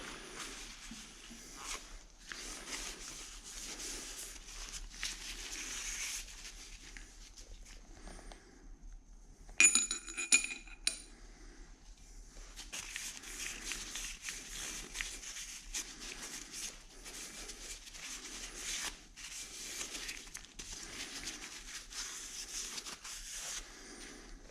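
Lint-free paper wipes rustling and rubbing as spindle parts and bearings are wiped clean. About ten seconds in, a metal part clinks and rings briefly.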